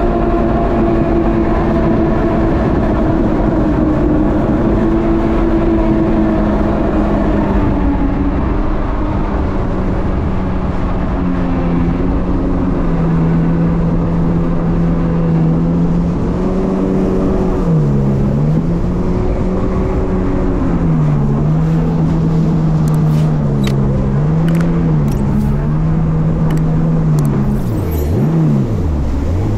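Kawasaki jet ski engine running at speed, holding a steady note, then easing off and picking back up several times in the second half. It drops lower near the end as the craft slows.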